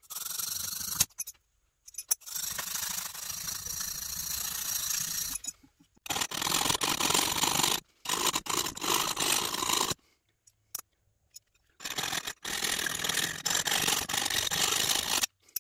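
A small cast-iron part of a Stanley 9 1/4 block plane scraped back and forth on sandpaper to flatten it and take off casting flash and burrs: a dry, steady rasping. It comes in several stretches that start and stop abruptly.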